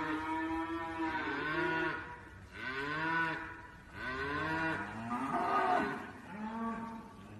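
Calves mooing, a run of drawn-out calls one after another, each rising and falling in pitch.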